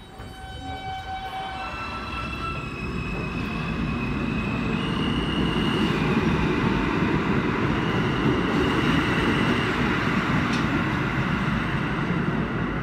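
R160B subway train accelerating. Its propulsion gives a series of steady whining tones that step upward in pitch, while the rumble of wheels and motors grows louder for about six seconds and then holds steady.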